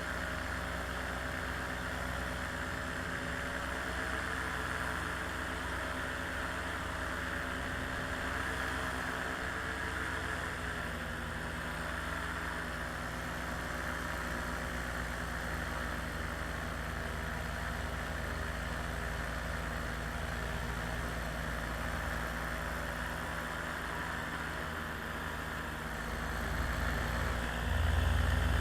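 Small aircraft engine idling steadily, a little louder over the last couple of seconds.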